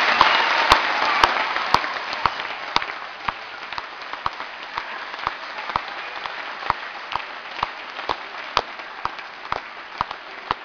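Crowd of children and adults applauding: loud at first, then dying down into steady clapping in time, about two claps a second.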